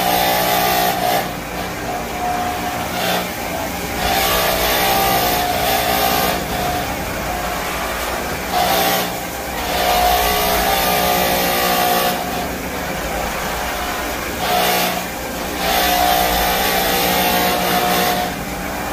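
Electric floor scrubbing machine running its brushes over a wet hardwood floor while stripping old wax. The motor hums with a steady whine, and a scrubbing hiss swells and fades every few seconds as the machine is worked back and forth.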